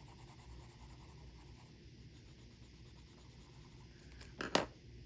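Purple Faber-Castell Polychromos colored pencil scratching softly as it colors on coloring-book paper; this pencil feels not so glidey on this paper. A brief, louder scrape comes about four and a half seconds in.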